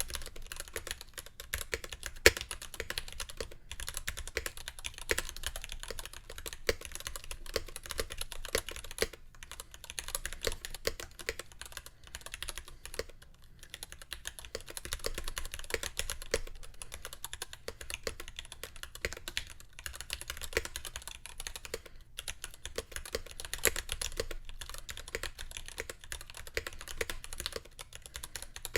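Continuous fast typing on a stock NK65 Entry Edition mechanical keyboard with unlubed Gateron Black Ink linear switches, an aluminium plate and factory-lubed plate-mount stabilizers: a dense stream of key clicks with short pauses and an occasional heavier stroke.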